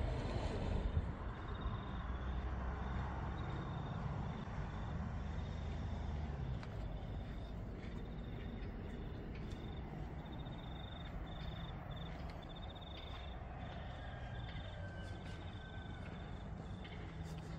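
Outdoor ambience: a thin, high, rapidly pulsing chirring that goes on steadily, over a low rumble that eases off after about six seconds.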